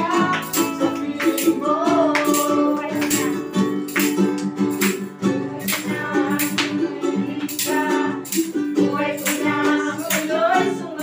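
Worship song sung by a small group to strummed ukulele and acoustic guitar, with hand-clapping on the beat about twice a second.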